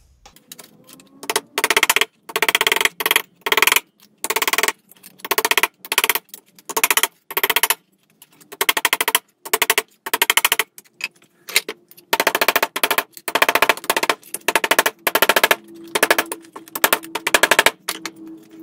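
Ball-peen hammer striking thin sheet steel against a bench vise in quick bursts of many blows, short pauses between bursts, with a faint metallic ring under them. The blows knock tucked folds in the edge flat, shrinking the metal.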